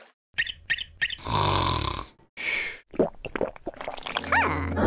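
A string of edited cartoon-style sound effects: a few sharp clicks, two short noisy bursts and a quick swooping glide. Background music comes in near the end.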